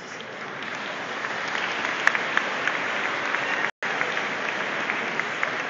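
A large crowd applauding, a dense patter of many hands clapping. It builds over the first couple of seconds and then holds steady, with a brief dropout in the recording about two-thirds of the way through.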